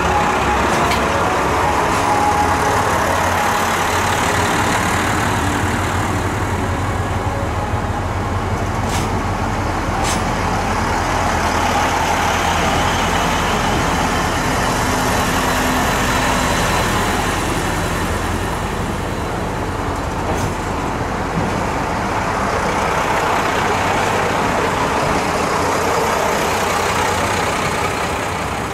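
Diesel railcars of the Shikoku Mannaka Sennen Monogatari sightseeing train (JR Shikoku KiHa 185 series) running slowly past at close range. The engines rumble steadily under the wheel noise, and a few sharp clicks come from the wheels crossing the rails.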